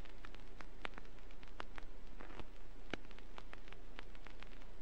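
Vinyl record surface noise from a record player: steady hiss with many sharp clicks and pops falling at irregular moments, over a faint low hum.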